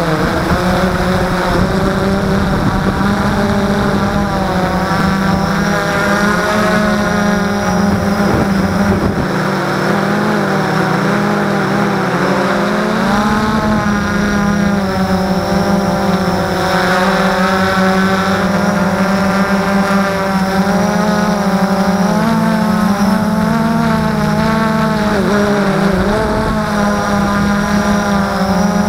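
Blade 350QX quadcopter's four brushless motors and propellers whining, heard close up from the onboard camera, several tones rising and falling together as the motors change speed in flight. A low rumble runs underneath and drops away for a few seconds about a third of the way in.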